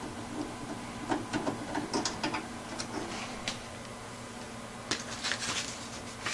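Irregular clicks, taps and short scrapes of plastic and metal parts being handled on a desktop computer case, in two clusters, over a faint steady hum.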